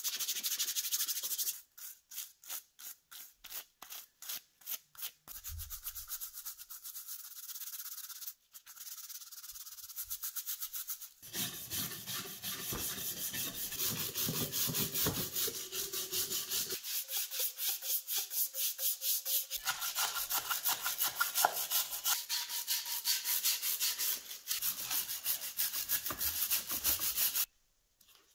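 Hand brush scrubbing the rusty threaded spindle and body of a large vise in soapy water, in rhythmic back-and-forth strokes. The strokes come separately at first, then turn into fast continuous scrubbing that stops abruptly near the end.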